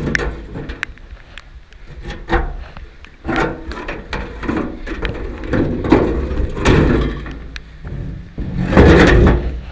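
Knocks, scrapes and rattles of the lid on a Woodchuck wood chipper being worked loose and lifted off to reach the starter solenoid, in irregular clusters, the loudest near the end.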